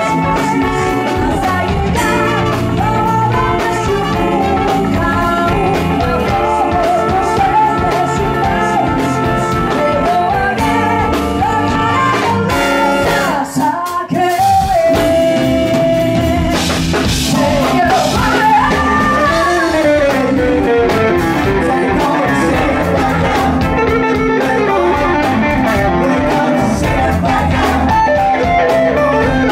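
Live band playing, with singing over drums, electric guitar and horns. The music breaks off briefly about halfway through, then comes back in.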